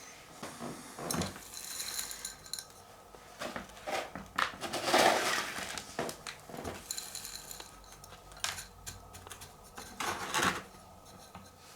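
Irregular clinks and knocks of tools and a pot being handled while the roots of a ficus bonsai are worked on, with a louder scraping rustle about five seconds in and another near ten seconds.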